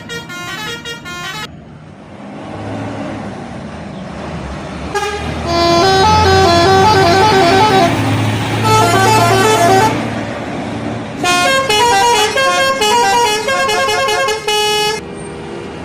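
Indonesian bus telolet horn playing quick melodies of stepped tones, in three bursts: a short one at the start, then two longer runs from about five seconds in. A bus engine runs underneath during the middle stretch.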